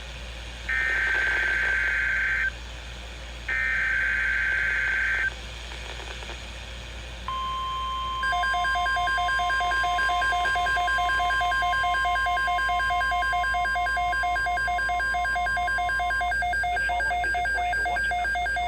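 Emergency Alert System SAME header on NOAA Weather Radio: two buzzing bursts of digital data tones with short gaps between them. After a pause comes the steady 1050 Hz NOAA warning alarm tone, held for about nine seconds. About a second after the alarm tone starts, a rapidly pulsing two-pitch beep joins it and carries on to the end.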